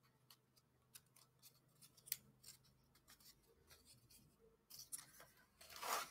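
Faint clicks and light scraping of thin wooden puzzle pieces being handled and pressed into snug slots, with a louder scrape of wood on wood near the end.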